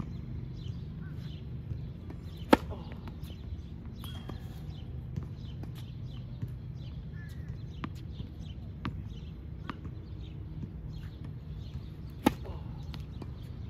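Two sharp knocks about ten seconds apart over a steady low hum, with scattered light ticks between them.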